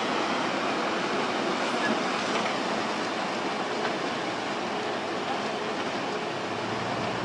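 Landslide in progress: a steady rushing noise of rock and earth sliding down a hillside.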